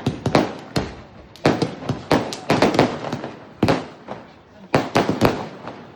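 Diwali firecrackers and fireworks going off: about a dozen sharp bangs at irregular intervals, some coming in quick bunches, each dying away in a short echoing tail.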